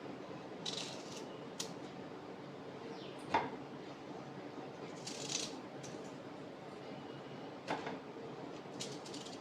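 Small handling noises: two short hissy scrapes and two sharp clicks or knocks, over a steady low hum.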